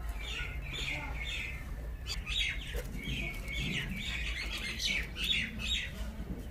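Small birds chirping in many quick, short notes, busier from about two seconds in.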